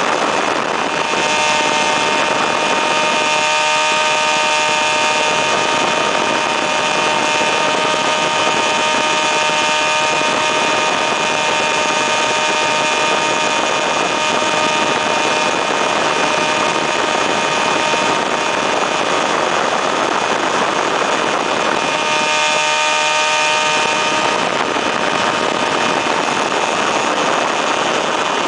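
Weedhopper ultralight's engine running steadily in flight, its note mixed with loud rushing wind and propeller noise. The engine note stands out a little more twice, briefly.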